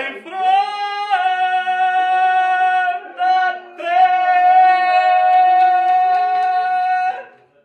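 Singing in long held notes, a high voice carried over lower parts sounding together. It breaks briefly about three seconds in, then holds one long final note that stops about seven seconds in.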